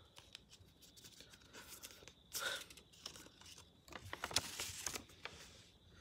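Paper rustling and crackling as a small folded instruction leaflet is handled and unfolded. There are irregular crisp rustles throughout, loudest about two and a half seconds in and again between four and five seconds in.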